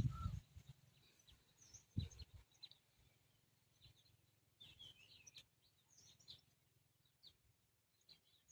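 Near silence with faint, scattered bird chirps, and a brief low thump about two seconds in.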